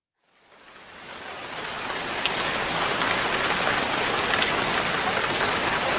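Recording of rain falling steadily, fading in over the first two seconds, with scattered drop ticks.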